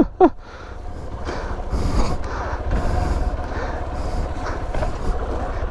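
Hero XPulse motorcycle riding over rough off-road ground, its engine running under load with rumbling wind noise on the microphone. The noise builds over about the first second and then holds steady. A brief vocal sound comes right at the start.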